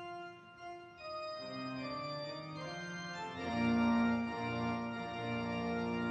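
Church pipe organ playing slow held chords for a wedding processional. It starts thin and soft, then swells about three and a half seconds in, when fuller chords and a deep bass come in.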